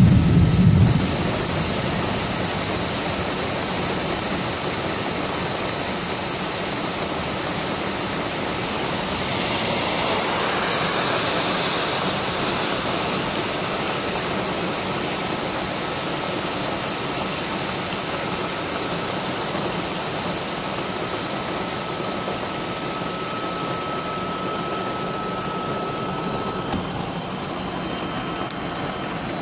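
Heavy rain pouring down steadily, with a vehicle engine idling underneath; the rain swells louder about ten seconds in.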